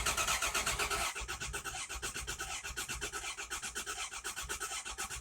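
1995 Dodge Dakota engine being cranked by its starter motor, turning over with an even, rapid chug but not catching. The owner thinks the no-start could be because the truck is out of gas.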